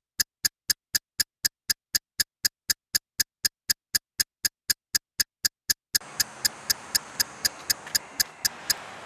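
An evenly spaced, sharp electronic ticking, nearly four ticks a second, laid over the opening title. About six seconds in, faint outdoor background noise comes in beneath it, and the ticking stops near the end.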